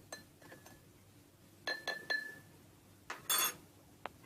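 A spoon stirring in a cup, clinking against its side again and again with short ringing notes, to dissolve honey. One louder, brief scraping clatter about three seconds in.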